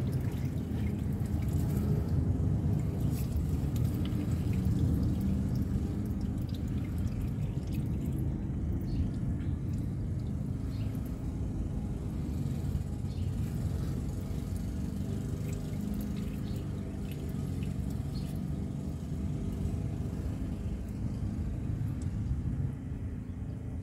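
Automatic transmission fluid draining from the transmission in a thin trickle and dripping, over a steady low rumble.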